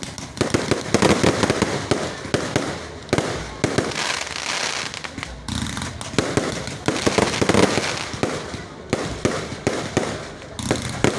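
Fireworks going off in a dense, continuous barrage of rapid bangs and crackling, surging louder several times.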